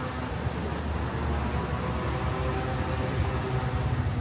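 City street traffic: a steady hum of passing vehicles, with a low engine rumble growing louder near the end.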